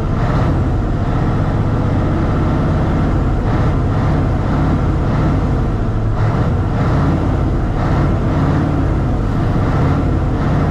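Mitsubishi Fuso truck's 8DC9 twin-turbo V8 diesel running steadily at idle, heard from the cab, while its air compressor builds up brake air pressure before the parking brake is released.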